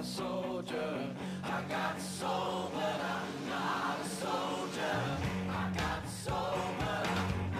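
Montage music with sung vocals over a sustained low note. A deeper bass part comes in about five seconds in.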